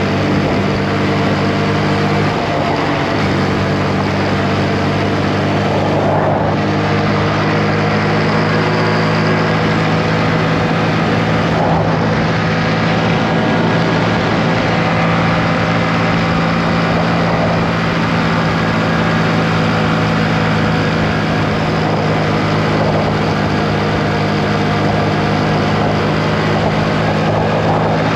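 Motorcycle engine running at a steady, unchanging pitch while riding, over a steady rush of noise.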